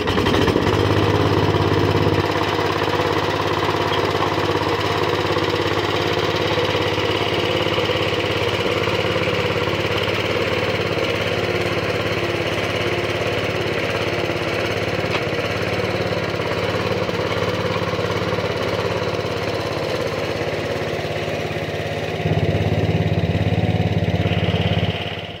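Sears Suburban 15 garden tractor engine running steadily while the tractor pulls on a chain hooked around a bush. It is louder for the first couple of seconds and again for the last few seconds, then stops abruptly near the end.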